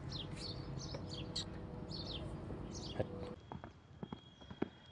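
Small birds chirping over and over above a low steady hum. About three seconds in, faint thuds of a race horse's hooves galloping on sandy ground take over.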